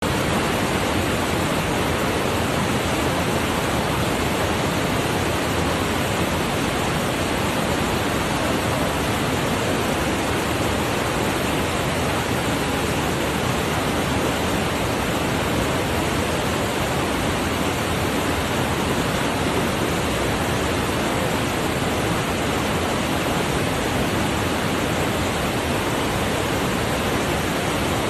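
Whitewater cascade rushing steadily over rocks, a continuous, even rush of water noise.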